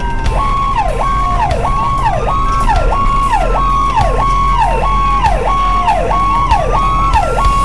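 Emergency vehicle siren sounding two tones at once. One is a slow wail that rises and falls over about five seconds; the other holds a high note and then drops sharply, repeating quickly, about every half second or so. A steady engine hum runs underneath.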